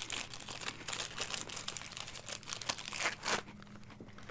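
Crinkling of a Domino chocolate-and-banana cookie packet's wrapper as it is handled, with a louder burst of crinkles about three seconds in.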